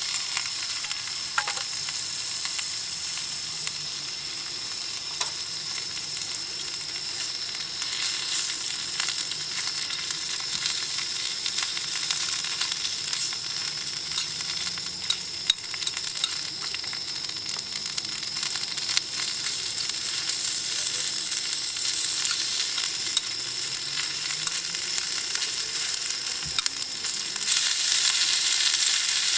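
Food sizzling and frying in a hot pan, a steady hiss dotted with small crackles that grows a little louder near the end.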